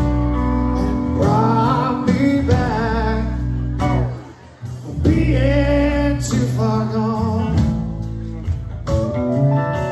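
Live country band with drums, electric guitars and bass playing a slow ballad, a male lead singer holding long notes with vibrato over it. The sound drops away briefly about four seconds in, then the band and voice come back in.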